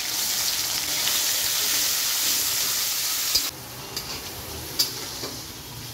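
Sliced onions sizzling loudly in hot oil in a kadai, just after being dropped in; the hiss falls away sharply about three and a half seconds in. A few spatula scrapes and clicks against the pan follow as the onions are stirred.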